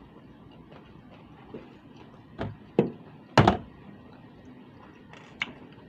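Three dull thumps within about a second, the last the loudest, then a faint click near the end.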